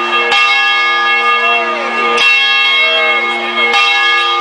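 A large bell being test-struck: three strokes about every one and a half to two seconds, each one ringing on in long steady tones that overlap the next stroke.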